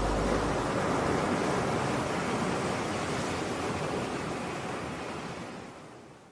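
Sea waves washing, a steady rushing that slowly fades and dies away near the end, with a low hum dying out in the first second.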